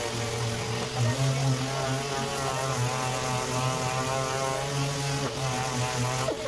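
Random orbital sander with a dust-extraction hose running against a car bumper, sanding the panel for repainting. A steady machine hum whose pitch wavers slightly as the pad is pressed and moved over the surface.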